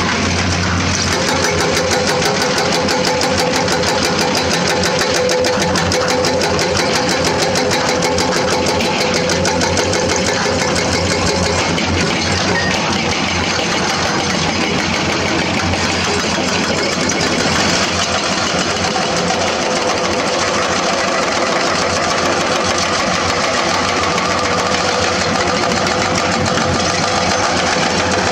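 Excavator-mounted hydraulic rock breakers hammering limestone in rapid, continuous blows over the steady drone of the excavators' diesel engines.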